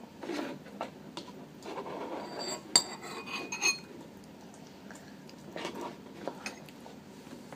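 Spoon scraping and clinking against a bowl during a meal, with one sharp ringing clink a little under three seconds in and a smaller one just after.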